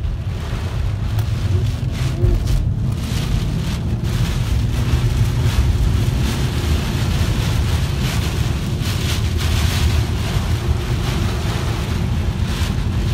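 Severe-storm wind and heavy rain battering a car, heard from inside: a steady low rumble of wind with surges of rain hiss, the strongest about nine to ten seconds in.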